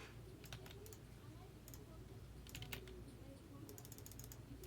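Faint, scattered light clicks, irregularly spaced, over a low steady hum.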